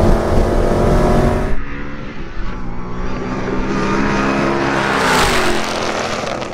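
Twin-turbo Ford Mustang GT's 5.0 V8 at full throttle, heard inside the cabin. About a second and a half in, the sound switches to the trackside: racing Mustang V8s approach, pass loudest about five seconds in, and the engine note drops in pitch as they go by.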